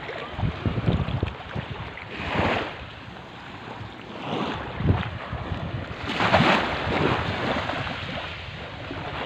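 Small waves washing in over the shallows and onto the sand, rising in three surges, with wind buffeting the microphone.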